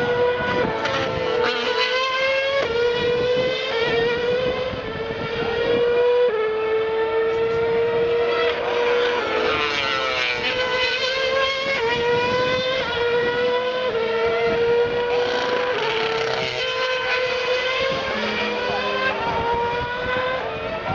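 Formula One cars' 2.4-litre V8 engines at high revs, the note climbing and then dropping at each upshift, over and over. Around the middle a car passes close.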